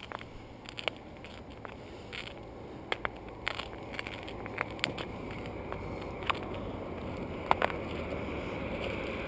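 Road train's tipper trailers rolling slowly past: a low rumble of tyres and running gear that grows steadily louder, dotted with scattered sharp clicks and crackles. A faint high whine joins in over the last couple of seconds.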